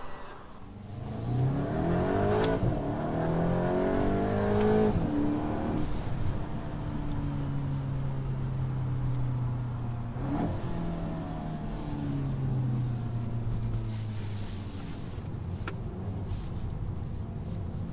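2021 VW Golf GTI Mk8's turbocharged 2.0-litre four-cylinder engine and exhaust under hard acceleration. Revs climb over the first few seconds, then it pulls steadily from inside the cabin, with a gear change about ten seconds in.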